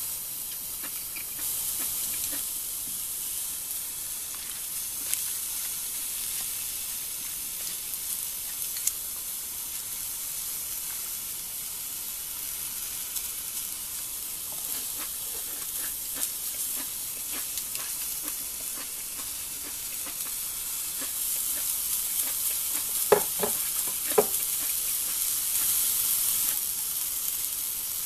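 Vegetables (enoki mushrooms, cabbage and onion) sizzling steadily in a hot cast-iron skillet. Near the end there are a few sharp clinks.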